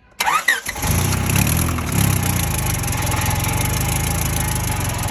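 Honda Civic's B-series inline-four cranks briefly on the starter, catches and runs loud and steady, freshly fitted with new rod bearings to cure a bad knock.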